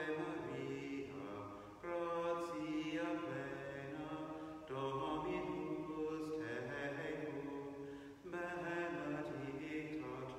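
A single male voice singing slow, unaccompanied chant: long held notes stepping in pitch, in phrases of about three seconds with short breaths between them.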